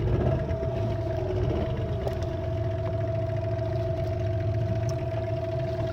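Fishing boat's engine running steadily, a low rumble with a steady whine over it.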